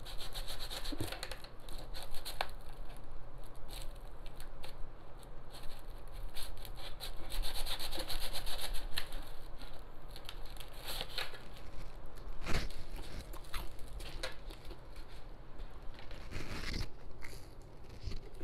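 Plastic take-away food containers and their wrapping handled while eating: crinkling and rustling with many scattered clicks, and a couple of louder knocks in the second half.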